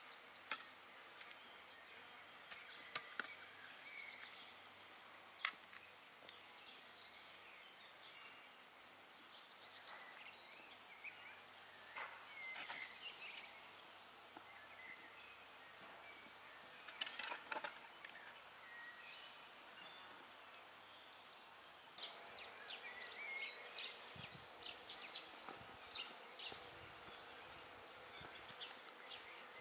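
Quiet garden ambience with scattered bird chirps, broken now and then by sharp clicks and scrapes of a shovel working compost out of a wheelbarrow. Soft footsteps on loose tilled soil near the end.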